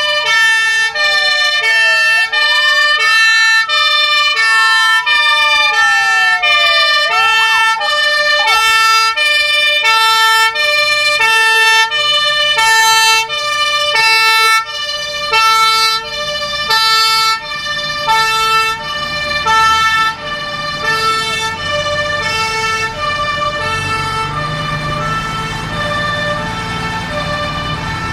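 Fire engine sirens. A two-tone siren switches between a high and a low note about every half second. During the first several seconds a second siren wails slowly up and down over it. A vehicle engine's low rumble grows near the end.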